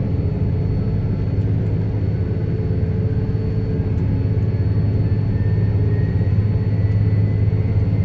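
Case IH combine's diesel engine running under heavy load in fourth gear while climbing a grade, a steady deep drone with a faint whine that slowly rises in pitch through the second half. The engine is labouring: it doesn't really like fourth gear pulls.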